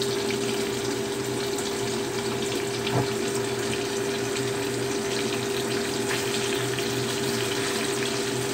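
Tofu blocks shallow-frying in hot oil in a wok: a steady sizzle full of fine crackles, over a steady hum. One light knock about three seconds in.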